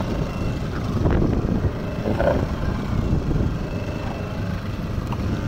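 Wind buffeting the microphone and waves splashing against the hull of a small wooden fishing boat in choppy sea, a steady low rumble throughout.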